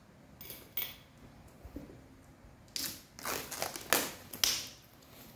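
Plastic wrapping on a cardboard product box crackling as the box is picked up and handled, with a cluster of short, sharp crackles from about three to four and a half seconds in. A couple of light clicks come just before.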